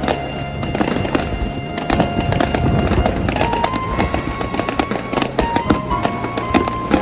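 Fireworks bursting and crackling in a rapid string of sharp pops, over music with long held notes.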